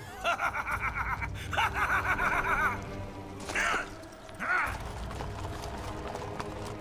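Several horses whinnying over background music: a long whinny with a fast, wavering pitch near the start, then two short whinnies about three and a half and four and a half seconds in.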